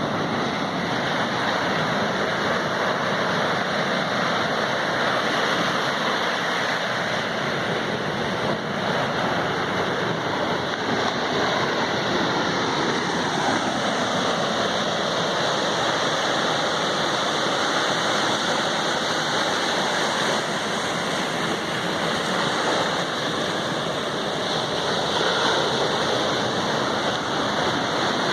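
Steady rain mixed with ocean surf: a continuous, even hiss of water with no distinct breaks.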